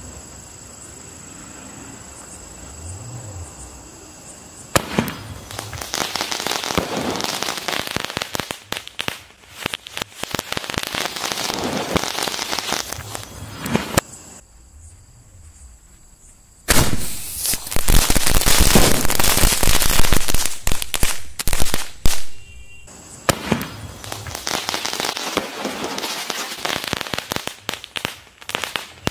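A firework combo of chatar patar crackers strapped around a sky-shot tube going off. After a few quieter seconds, dense rapid crackling and popping sets in. It stops for a couple of seconds, comes back as the loudest part, a fast volley of bangs, then crackles on more lightly near the end.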